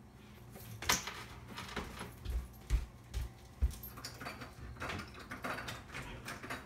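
Irregular clicks and knocks, with a few low thumps about two to four seconds in, from someone moving about the kitchen, handling doors and things.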